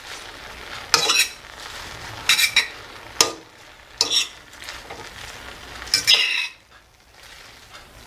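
A utensil scraping and stirring vegetables in a pot on the stove: a little scrapey sound of several short strokes against the pot, stopping after about six seconds.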